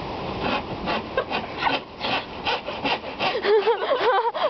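Hand saw cutting through wood in quick, even back-and-forth strokes. A voice joins near the end.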